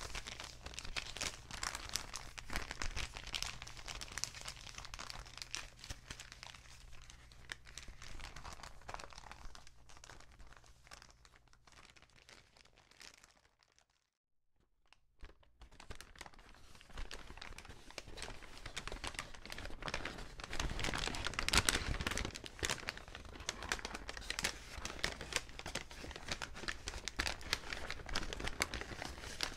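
Paper bag being crinkled and crumpled by hand in a dense, irregular stream of crackles. Near the middle it fades out and stops for about a second and a half, then starts again and grows louder.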